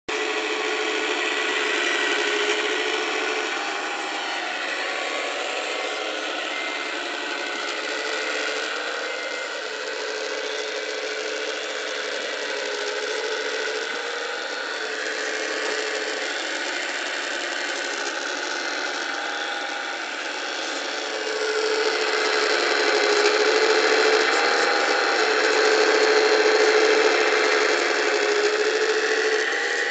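Electric hydraulic pump of a 1:14.5 scale Wedico RC CAT 345D LME excavator whining as it works the boom and bucket, its steady tone dropping in and out in stretches as the controls are moved. It grows louder about two-thirds of the way through.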